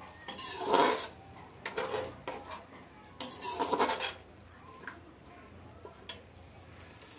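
Steel slotted spoon stirring a thick curry in an aluminium kadhai, scraping against the pan in a few short strokes, loudest about a second in and again near four seconds in.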